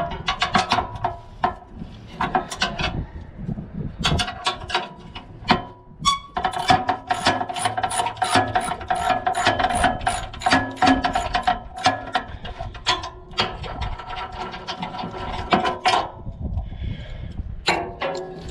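Socket ratchet wrench clicking in runs of rapid strokes, with short pauses, as bolts are undone on a sawmill's husk.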